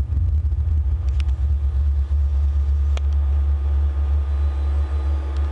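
Deep, steady rumble of metal ceiling wires picked up by piezo contact microphones and amplified, with two sharp clicks, one about a second in and one about three seconds in.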